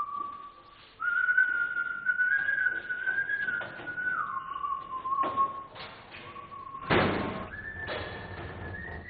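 A person whistling a slow tune in long held notes that step up and down, with a few soft knocks and a louder thud about seven seconds in.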